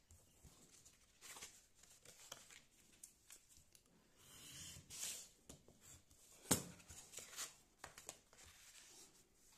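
Faint rustling and handling of paper shoe-pattern pieces, with one sharp tap about six and a half seconds in.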